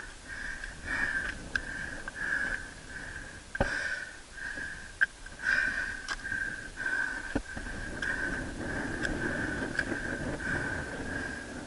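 A climber breathing hard and fast in an even rhythm, about three breaths every two seconds, with a few sharp knocks of hand or camera against rock.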